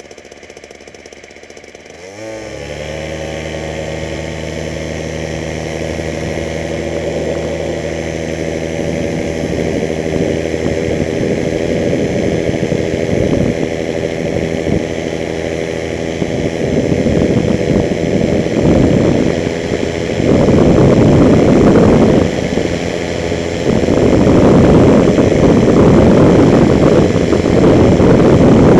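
Flylight Dragon Chaser flexwing microlight trike's engine and pusher propeller opening up sharply about two seconds in, rising in pitch and then running steadily at high power for the take-off run and climb. In the second half, heavy gusts of wind noise buffet the wing-mounted camera over the engine, louder toward the end.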